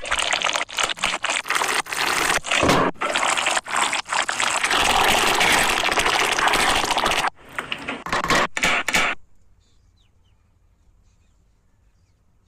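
Food sizzling loudly in a hot pan, broken by many short gaps. About nine seconds in it stops and drops to near silence.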